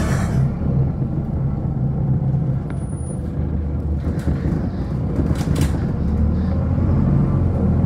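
City bus running, heard from inside the cabin as it drives along: a steady low engine drone that eases in the middle and builds again near the end. A few brief hisses sound at the start, about four seconds in and twice more just after five seconds.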